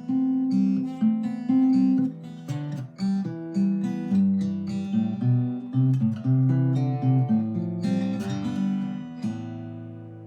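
Martin 00-28VS steel-string acoustic guitar played solo: a run of plucked melody notes over bass notes, then a chord about nine seconds in that rings out and fades. Recorded through an iPhone microphone.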